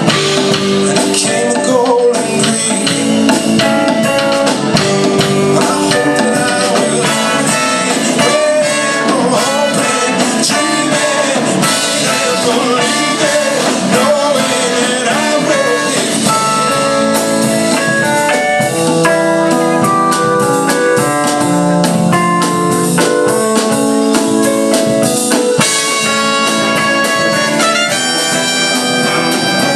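Live band playing an instrumental passage of a rock song, with a drum kit keeping time under held melodic lines.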